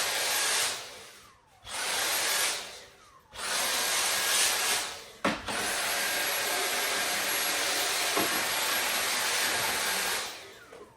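Dyson V8 cordless stick vacuum motor whirring with a thin high whine, switched off and on several times. It gives three short runs of about a second, then one longer run of about five seconds. Each time it cuts off, the motor winds down with a falling pitch.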